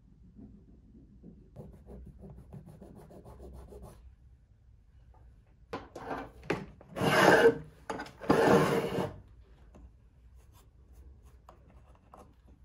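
Rough rasping strokes worked on green carving wax at a wooden bench pin: a faint scratchy texture at first, then a few short scrapes and two loud strokes past the middle, each under a second.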